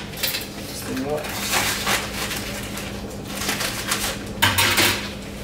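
Crinkling and rustling of a plastic bag of seafood boil seasoning being handled, in a few short bursts, over a steady low hum.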